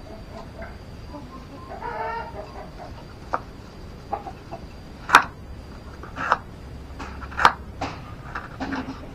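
Chickens clucking, with one longer pitched call about two seconds in, mixed with a series of sharp short knocks, the loudest about halfway through and again a couple of seconds later.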